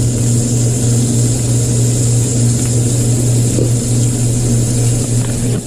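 Steady low hum and hiss from lit commercial gas range burners, with a ribeye steak sizzling in a ridged grill pan over the flame.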